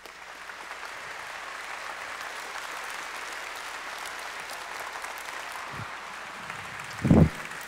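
Large audience applauding steadily after a speech, swelling in over the first second. There is a short, louder thump near the end.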